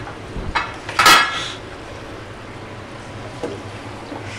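Metal cookware clattering once with a short ringing clink about a second in, then lower steady noise as a wooden spatula starts stirring the chicken and vegetables in the pan.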